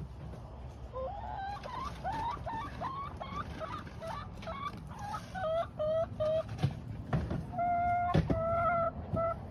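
Hens calling: a run of short rising calls, then short even notes, and near the end longer drawn-out notes. A few knocks come in the second half.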